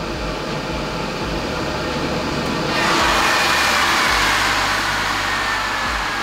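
Ninja Foodi XL Pro Air Oven's convection fan running steadily with the door closed. A little under halfway through, the door is opened and the fan noise jumps sharply louder, with a thin whine that slowly falls in pitch.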